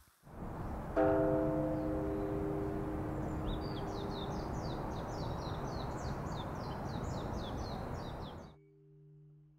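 Outdoor ambience with a steady hiss. A bell-like chime is struck about a second in and rings on, slowly fading. From about three and a half seconds in, a bird twitters in a quick run of high chirps, about four a second. It all cuts off abruptly near the end, leaving a faint low hum.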